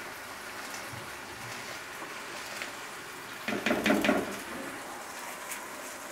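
Soaked rice poured from a plastic colander into a pot of boiling water, with the water bubbling steadily. About three and a half seconds in, a louder rush of grains into the water with a few knocks, as the colander is tipped and shaken over the pot.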